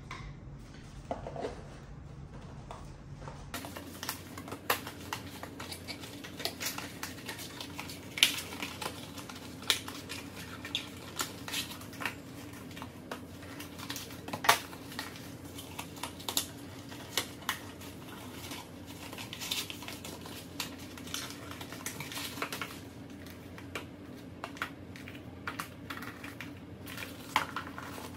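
Irregular light clicks, taps and rustles of cardboard macaron boxes and a paper insert being handled, folded and set down on a countertop.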